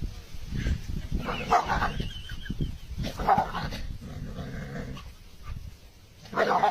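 A dog vocalising in short, irregular bursts, with growls and barks.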